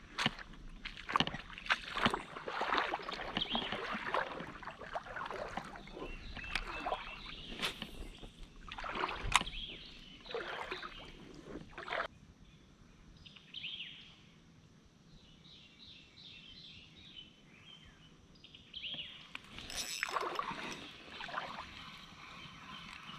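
Knocks, clicks and scrapes of fishing gear and paddle against a plastic kayak hull, with water sloshing, for the first twelve seconds or so. Then a quieter stretch with bird song, and more knocks and handling near the end.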